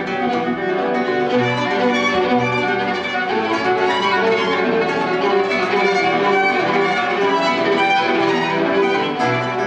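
Violin and nylon-string classical guitar playing a duet: the bowed violin carries the melody over the guitar's accompaniment, with a few deep bass notes from the guitar standing out, twice in the first few seconds and once near the end.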